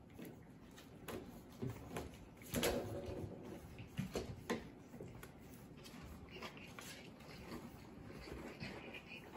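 French bulldog puppies moving about and playing in their pen: scattered light knocks and clicks of paws and toys on the floor, the loudest about two and a half seconds in.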